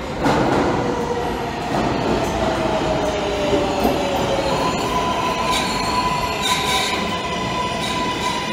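Kawasaki R142A subway train running into an underground station: a rumble of wheels on rail with a whine that falls in pitch, then a steady high-pitched wheel squeal from about five seconds in.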